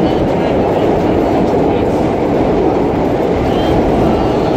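Vintage R1-9 subway cars running along the track: a loud, steady rumble of wheels and running gear.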